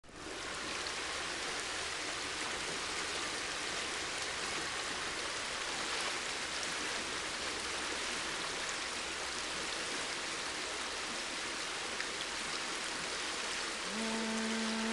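River water flowing, a steady rushing that fades in at the very start. Near the end a voice begins one long, steady sung note.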